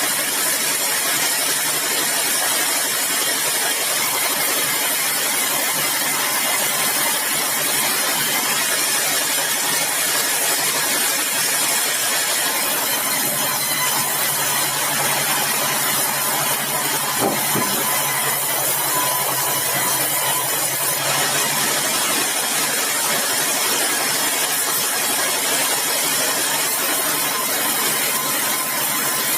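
Sawmill machinery running steadily while meranti wood is sawn: an even, loud machine noise with a constant low hum. A faint thin whine comes in about halfway through.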